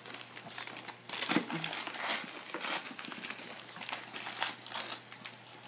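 Christmas wrapping paper crinkling and tearing in quick, irregular rustles as small dogs rip and nose through it.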